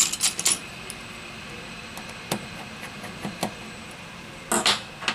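Small clicks and taps from handling an opened smartphone and metal tweezers on a repair mat: a quick cluster at the start, a few single ticks in the middle, and a brief rustle near the end.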